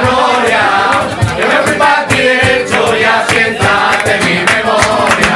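A group of men singing together to several strummed classical (nylon-string) guitars, the chords strummed in a steady rhythm.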